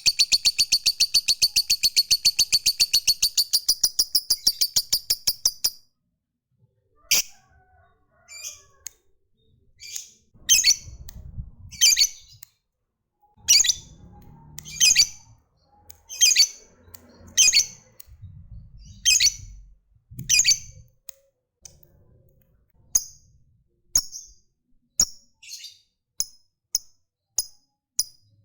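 Lovebird giving its long, rapid chattering trill (ngekek), which stops about six seconds in. Single sharp high chirps follow about once a second, coming faster near the end.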